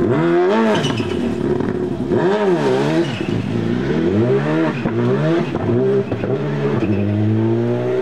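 Rally car's engine revved hard in repeated rising and falling bursts as the car works itself free from the hedge it slid into, then one long rising pull near the end as it accelerates away.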